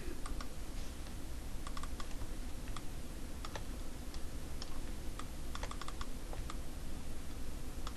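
Scattered, irregular clicks of computer keyboard keys and mouse buttons, a dozen or so, over a steady low hum.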